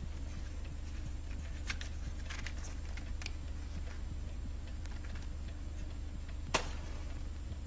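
Soft rustles and light clicks of hands handling small objects at a table, with one sharper click about six and a half seconds in, over the steady low hum of an old film soundtrack.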